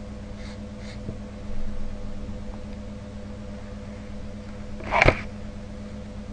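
Steady electrical hum, with a felt-tip pen scratching across paper about a second and a half in as the answer is double-underlined, then a short, louder rustle about five seconds in.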